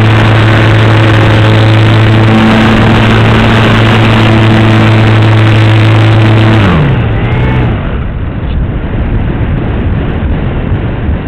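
Model airplane's motor and propeller heard from on board, running at a steady drone; about two-thirds of the way in the throttle is cut and the pitch slides down and fades, leaving wind rushing past the plane as it glides low.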